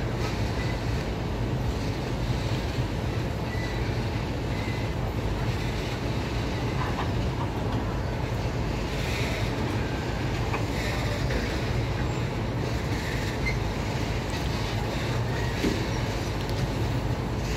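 Freight train of open wagons rolling past at a steady speed, its wheels running on the rails in a continuous, even noise.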